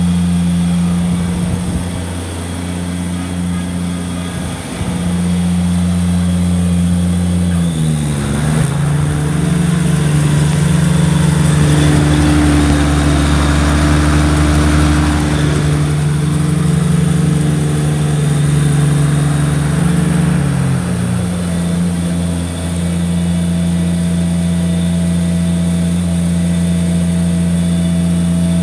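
Kubota G23 ride-on mower's three-cylinder diesel engine running steadily. About eight seconds in its pitch shifts and it runs louder with a rushing noise over it, then about thirteen seconds later it settles back to the earlier steady note.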